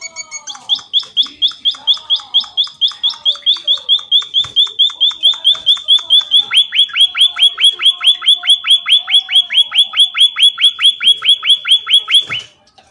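Munia (emprit) calling in a long, fast, even series of loud chirps, about four to five a second. About halfway through, each chirp becomes a sharp downward-sweeping note. The series stops abruptly near the end.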